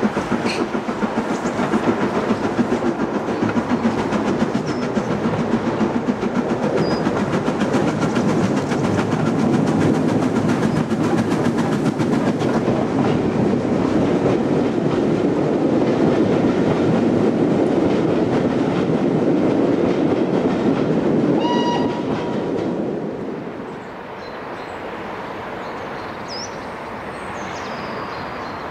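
Steam locomotive working a train with a fast beat of exhaust chuffs and rail noise. It grows loudest as it passes close by, then falls away sharply after about 23 seconds as it draws off.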